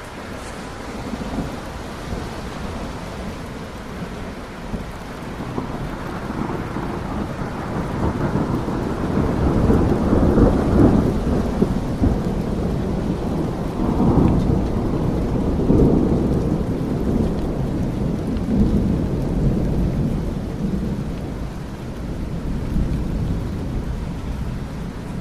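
Rainstorm with rolling thunder: steady rain under low rumbles that swell about a third of the way in and peak several times before easing off.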